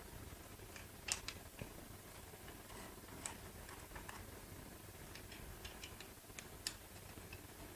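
Faint, irregular small clicks and taps of an Allen wrench working the screws of a GL-CORE CP polymer cheek rest, as the screws are backed out until fully loose.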